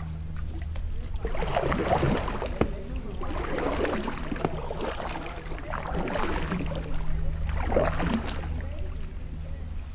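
Kayak paddle strokes about every two seconds, with water splashing and dripping off the paddle blades, over a steady low hum.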